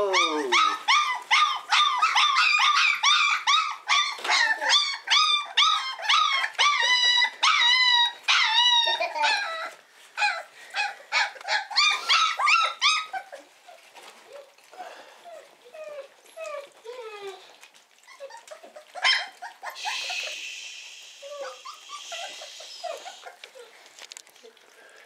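A litter of Cane Corso puppies whining and yelping together in many overlapping high, bending cries: hungry puppies crying for food. About halfway through the cries thin out to scattered, falling whimpers as they settle to eat.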